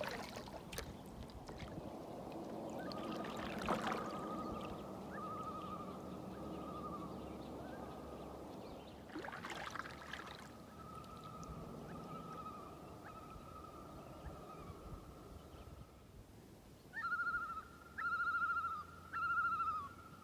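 Common loons calling in flight overhead: a run of wavering tremolo calls, faint at first, then three loud calls in quick succession near the end. Canoe paddle strokes and water gurgling sound quietly underneath.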